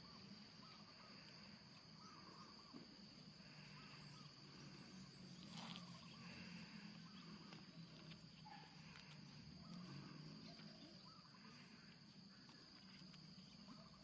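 Faint natural ambience: a steady high-pitched insect drone with a few faint bird calls.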